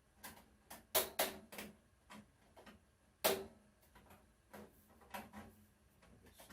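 Irregular sharp metallic clicks and knocks from an oven door part and tools being handled and worked on, with a quick cluster about a second in and one loud knock a little past three seconds.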